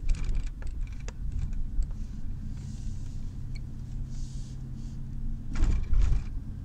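Car driving, heard from inside the cabin: low engine and road rumble with a steady low hum through the middle, a few light clicks and rattles in the first second, and a louder rumble about five and a half seconds in.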